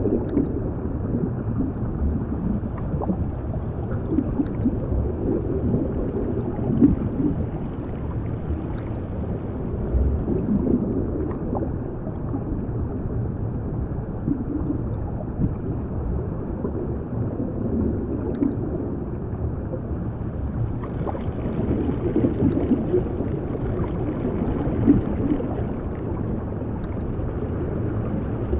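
Underwater ambience: a steady, muffled low rumble with bubbling and gurgling throughout, and a few faint clicks.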